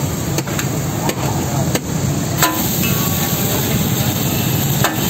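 A metal ladle striking and scraping a flat griddle as fried fish is chopped and broken up, giving a few sharp knocks at uneven intervals over steady background noise.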